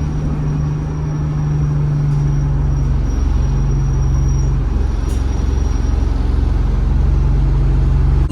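ADL Enviro 200 single-deck bus engine running steadily under way: a low, even drone. A faint high-pitched turbo whistle sits over it and stops about six seconds in.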